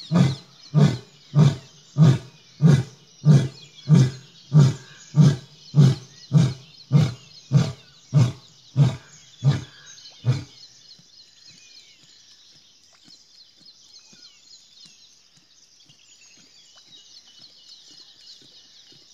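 An Asiatic lion grunting in a long, even series, deep and loud, about one grunt every 0.6 seconds: the grunting run of a lion's roar. The grunts stop about ten seconds in, leaving only faint high background chirring.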